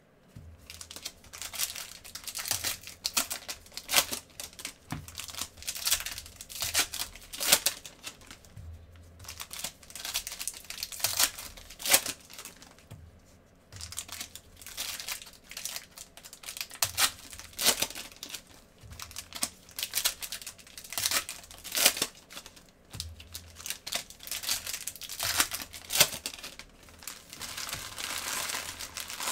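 Panini Prizm basketball card pack wrappers being torn open and crinkled by gloved hands, in quick, irregular bursts of crackling with short pauses between packs.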